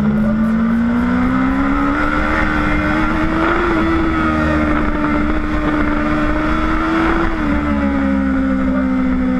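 Sport motorcycle engine running steadily at high revs on a race track, heard onboard over wind and road rumble. Its note climbs gradually about two seconds in, holds, then falls back slightly near seven seconds.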